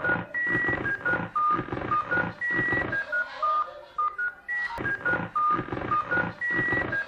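Ringtone-style electronic melody of short, steady beeps over a drum beat, the same phrase repeating about every two seconds.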